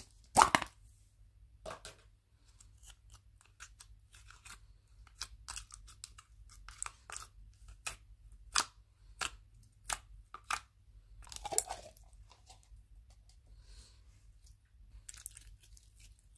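A plastic slime tub's lid snaps open about half a second in. Then thick pink slime is dug out of the tub and squeezed by hand, giving an irregular string of sticky clicks and crackling pops.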